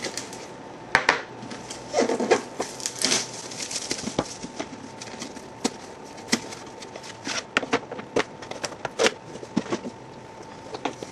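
A cardboard box being cut open with a utility knife and a small metal card tin slid out of it and set down on a wooden desk: irregular clicks, scrapes and crackles of cardboard and metal being handled.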